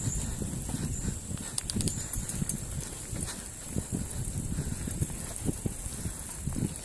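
Mountain bike riding down a rough dirt singletrack, heard from a camera on the bike or rider: an uneven rumble of tyres over bumpy ground with frequent knocks and rattles as the bike jolts.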